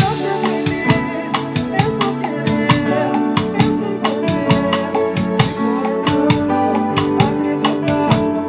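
Samba music: a drum kit played with sticks in quick, steady strokes along with a backing track of plucked strings and bass.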